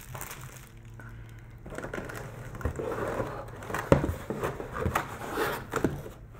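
Cardboard packaging being handled inside a box: irregular rustling and scraping with a few light knocks as hands lift and move the inner cardboard pieces.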